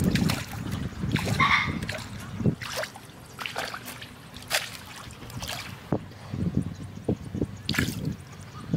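Shallow muddy water splashing and sloshing in irregular bursts as someone wades and works a woven bamboo plunge basket down into a paddy ditch to trap fish.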